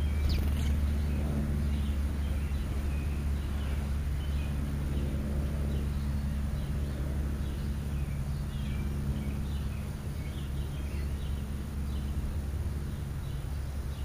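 Birds chirping in short scattered notes over a steady low hum, with one sharper, higher call about half a second in.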